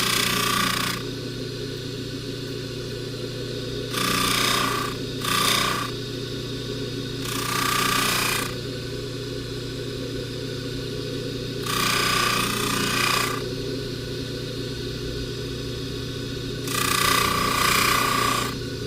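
Bench polishing buffer running with a steady motor hum. About six times, a rasping rub of a second or so is heard as a silver box chain is pressed against the spinning buffing wheel.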